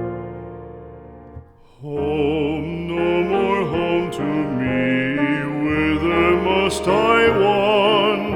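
Background music: a piano chord rings and fades out, then about two seconds in a singer with strong vibrato comes in over accompaniment.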